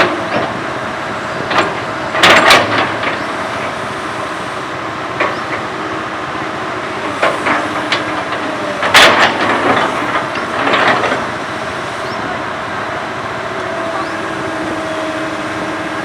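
Komatsu PC200 hydraulic excavator working, its diesel engine droning steadily under loud knocks, the heaviest about 2 and 9 seconds in, with smaller ones between. A steady whine settles in over the last few seconds.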